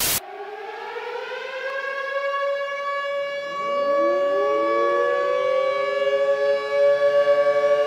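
A siren-like wail: pitched tones glide upward and settle into a steady sound, with a second rising tone joining about three and a half seconds in, growing louder throughout.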